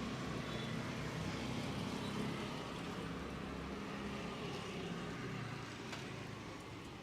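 Street traffic rumbling steadily, a vehicle passing close by and fading near the end.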